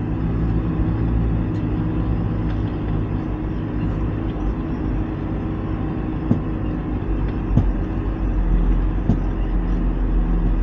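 Mercedes Vario 818 truck's diesel engine running steadily under load, pulling up a steep dirt track in low range and the lowest gear, heard from inside the cab. A few short, sharp knocks come through a little past the middle as the truck rides over the ruts.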